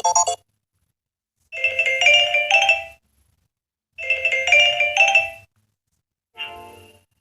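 Samsung Galaxy S8 ringtone: a short chiming melody played twice, with about a second of silence between, then a different short tone begins near the end.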